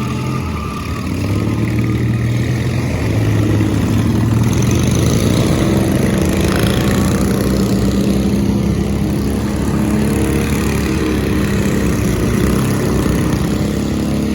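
Racing lawn mower engines running hard, getting louder about two seconds in and then holding a steady, higher pitch.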